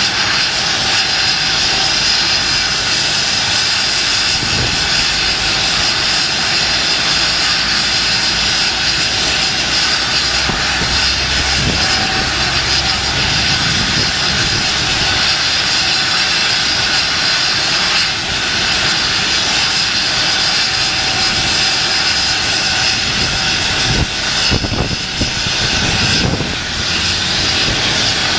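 Helicopter running on the ground with its rotor turning, a loud steady engine and rotor noise mixed with the rotor downwash blasting wind across the microphone. The wind noise wavers near the end.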